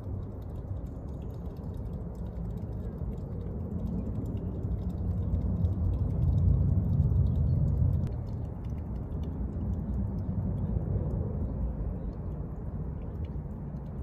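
Wind buffeting the microphone: a low rumble that swells to its loudest about six to eight seconds in, then eases.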